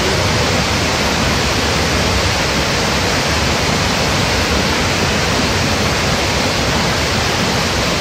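Wide curtain waterfall pouring over a rock ledge into a foaming pool: a steady, even rush of falling water.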